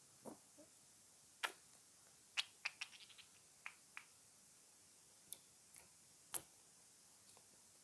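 Scattered small, sharp clicks and ticks against near silence, from hands handling slime and makeup. A cluster of quick clicks comes about two and a half to three seconds in, and the loudest single clicks fall near one and a half and six and a half seconds.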